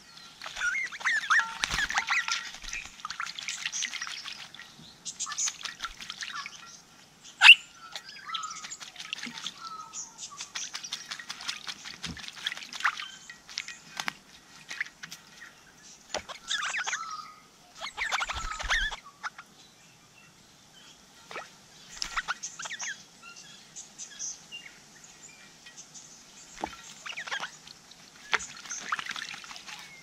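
Crimson rosellas bathing in a bird bath, flapping their wings in the water and sending up splashes in bursts of a second or two with short quiet gaps. A single sharp knock stands out about seven and a half seconds in.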